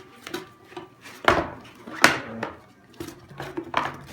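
Stereo accessories and packaging being handled and put back into their box: several clattering knocks and clicks, the two loudest about a second and two seconds in, with some rubbing between them.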